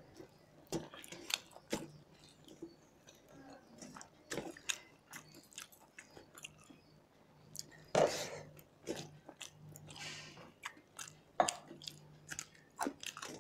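Close-up eating sounds of rice and curry eaten by hand from steel plates: chewing and mouth noises with scattered sharp clicks at an irregular pace, and a couple of longer louder noises around the middle.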